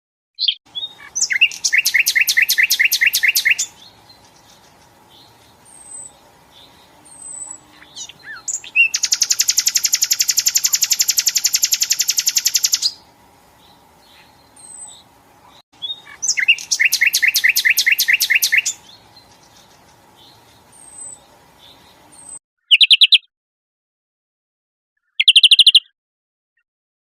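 Songbird song in repeated bursts of rapid, evenly pulsed trills. A long buzzy trill of about four seconds sits in the middle, with faint single chirps between the bursts over a faint steady hum. Near the end the song comes in short cut-off snippets with dead silence between them.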